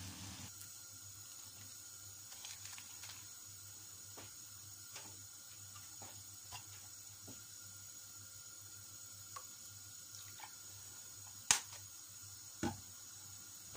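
A brief frying sizzle at the very start, then a quiet pan of broth heating on the stove: a low steady background with scattered soft ticks and two sharper clicks near the end.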